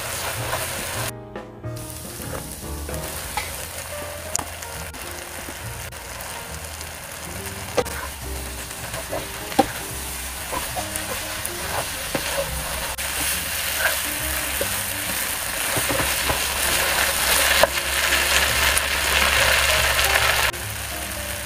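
Noodles, chicken and leafy greens sizzling in a hot nonstick wok, stirred and tossed with a wooden spatula that clicks and scrapes against the pan. There is a brief break about a second in; the sizzle grows louder after the greens go in over high heat, then drops abruptly near the end.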